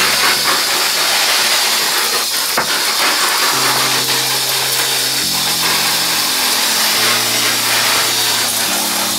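Handheld shower sprayer running, a steady hiss of water spraying over potted houseplants in a bathtub. Background music with slow, held chords plays underneath.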